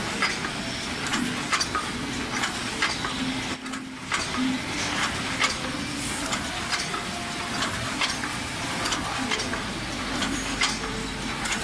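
Gear-box paper cup making machine running, a steady mechanical clatter with knocks and clicks repeating at an even rhythm as it forms cups.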